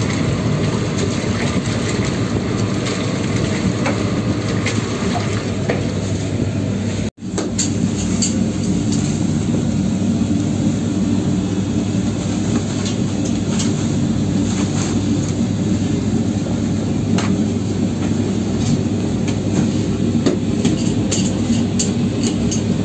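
Large commercial dough mixer with a kneading arm running, a steady mechanical drone and low hum with scattered light clicks and knocks. The sound drops out for an instant about seven seconds in.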